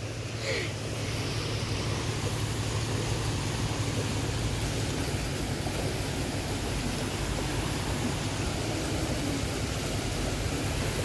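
Fast-flowing creek rushing over rocks: a steady, even rushing noise.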